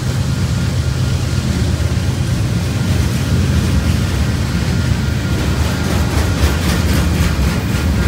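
Loaded freight cars rolling past on the rails with a steady low rumble and wheel noise, and a run of quick clicks about six seconds in.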